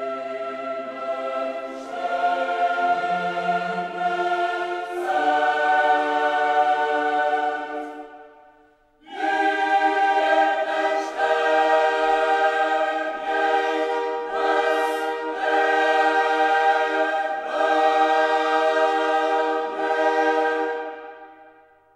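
Background music: a choir singing slow, sustained chords. The phrase dies away about eight seconds in, and after a short break a second phrase starts and fades out near the end.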